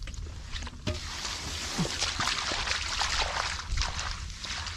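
Hands sloshing and splashing through shallow muddy water in a rice-field puddle, groping in the mud and wet grass with a run of irregular small splashes.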